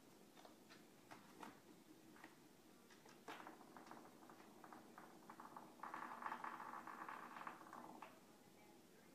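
A cat's claws scratching and pawing at a fabric cushion: faint scattered scratches, then a louder run of rapid scratching for about two seconds starting about six seconds in.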